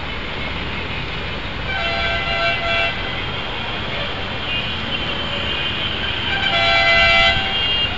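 Vehicle horns honking in heavy road traffic. One horn sounds for about a second roughly two seconds in, and a louder one sounds near the end. Both are heard over a steady din of traffic.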